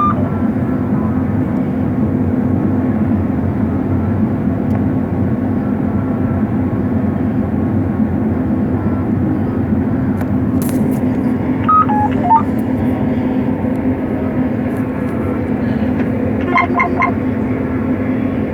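Combine harvester running steadily with a constant low hum. About twelve seconds in there is a short electronic chirp of falling tones, and near the end a quick run of three electronic beeps.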